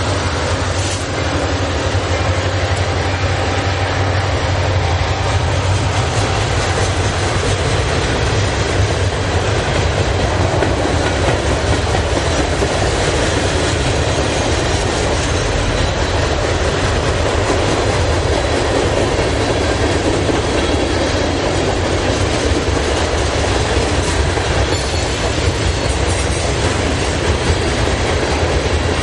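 A Union Pacific diesel freight train passing close by. Over the first few seconds the last locomotive's engine drone is heard, giving way to the steady rumble of the freight cars' wheels on the rails.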